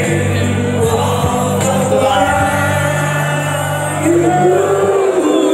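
Music with singing over sustained bass notes; the bass drops out briefly near the end.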